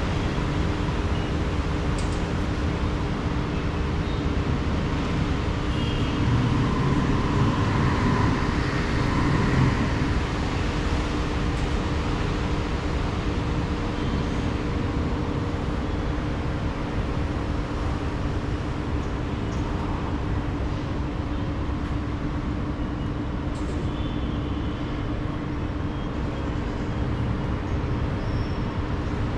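Steady urban traffic noise, a wash of engines and tyres with a constant low hum, swelling slightly about a third of the way through.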